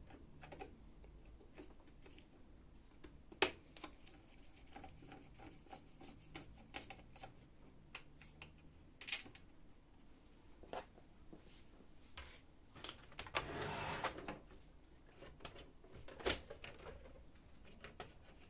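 Faint, scattered clicks and light rustling of a screwdriver and plastic laser-printer parts being handled while screws are taken out of the cover, with one sharper click about three seconds in and a brief rustle about two-thirds of the way through.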